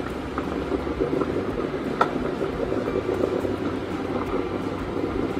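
Water poured from a metal cup into a pot of soup on the stove, a steady liquid noise with a single clink about two seconds in.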